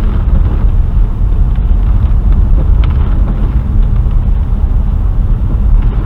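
Car driving on a rainy dirt road, heard from inside the cabin: a steady low rumble of engine and tyres, with a few faint ticks.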